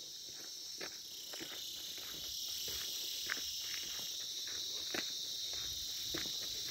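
A steady, high-pitched chorus of insects that swells about two seconds in, over irregular footsteps on a dirt and gravel track.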